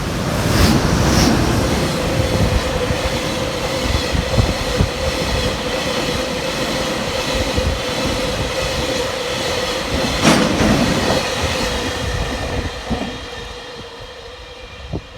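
Freight train behind an EH200 electric locomotive running through a station without stopping: a steady rumble of wheels on rail with a steady whine, sharp clatters over rail joints near the start and again about ten seconds in, fading away near the end as the train passes.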